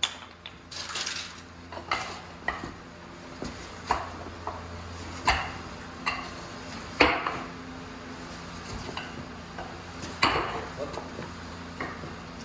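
Irregular metallic clanks and knocks as the old rubber track of a Gehl CTL-70 tracked skid steer is worked off its idler and rollers by hand and dragged clear, over a steady low hum.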